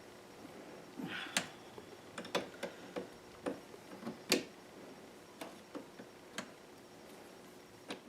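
Faint, irregular metallic clicks and taps of a wrench tightening the nut on a car battery's negative terminal clamp.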